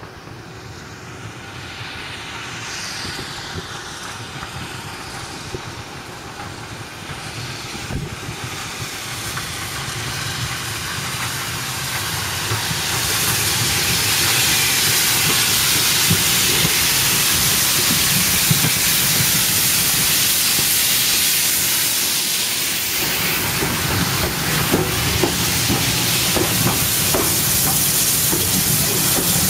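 Steam tank locomotive No. 85 running in with its train, growing steadily louder as it approaches. From about halfway a loud hiss of steam takes over, and in the last few seconds the coach wheels click over the rail joints as they roll past.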